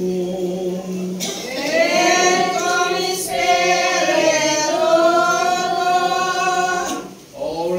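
Church choir singing a liturgical chant. A steady held note gives way about a second in to a rising phrase of sustained notes, and the singing breaks off near the end.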